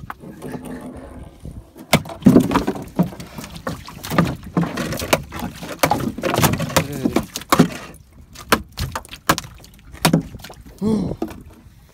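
A freshly landed cobia thrashing on a fibreglass boat deck: a string of irregular thumps and slaps, thickest through the middle and thinning out near the end.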